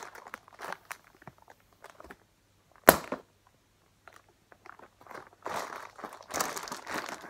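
Plastic bubble wrap crinkling as it is pressed and squeezed, with one loud, sharp pop of an air cell bursting about three seconds in, and denser crinkling near the end.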